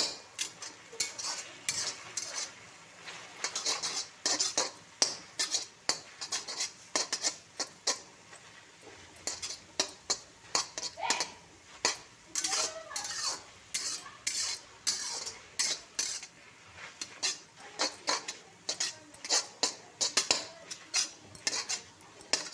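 Flat steel spatula scraping and clinking against a metal kadhai as leafy greens are stirred and tossed, in quick irregular strokes, several a second, with brief pauses.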